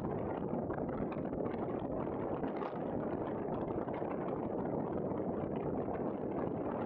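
Steady wind noise buffeting the microphone, mixed with the wash of breaking surf.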